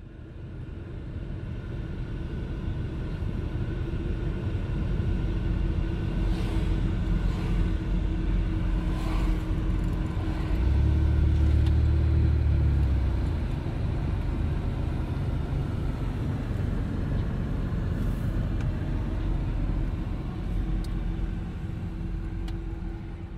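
Steady low rumble of a moving vehicle with a constant hum running through it, growing deeper and stronger for a few seconds about halfway through.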